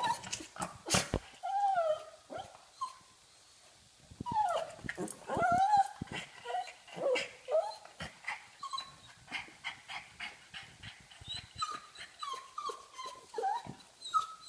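Pug whining and whimpering in many short, high-pitched cries that bend up and down in pitch, mixed with sharp clicks. After a pause of about a second and a half the cries come again in a quicker run. The whining is the dog begging to play.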